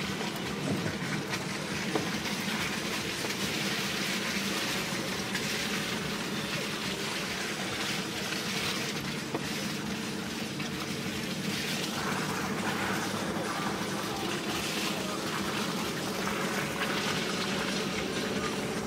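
A 4x4's engine running steadily as the vehicle drives a rutted mud track, heard from inside the cabin, with knocks and rattles from the bumpy ground over the engine drone.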